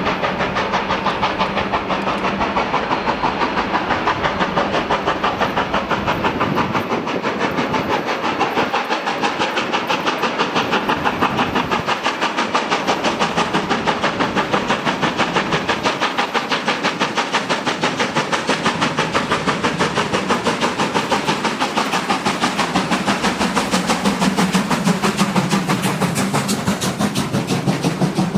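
Two-cylinder steam exhaust of DR class 50.35 steam locomotive 50 3501 working under steam, with rapid, even chuffing beats and steam hiss.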